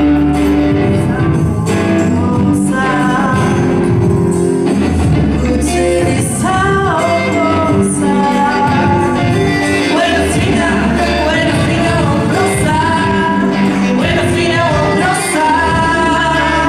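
Live band performing a song: a woman singing a melody over electric guitar and keyboard.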